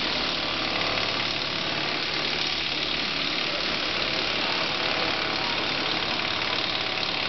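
Steady mechanical running noise, like an idling engine, with a constant hiss.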